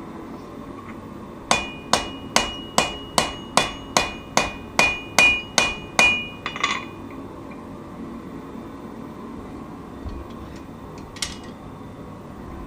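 Forging hammer striking a knife billet on an anvil: about a dozen ringing blows at a steady two to three a second, then quiet apart from a single blow near the end.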